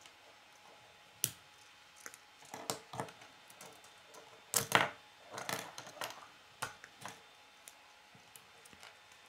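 Plastic K'nex pieces clicking as they are handled and snapped together: scattered sharp clicks, with the loudest cluster a little past the middle.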